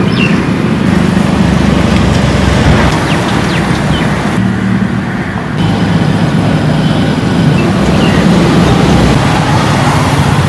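Loud, steady outdoor rumble with a few faint short chirps, changing abruptly a few times.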